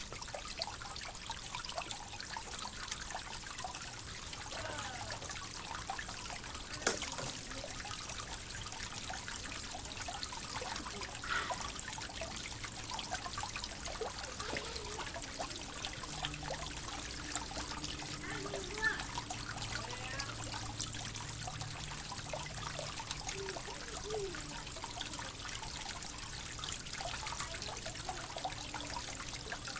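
A small woodland creek flowing over rocks: an even, steady water sound throughout. One sharp click sounds about seven seconds in.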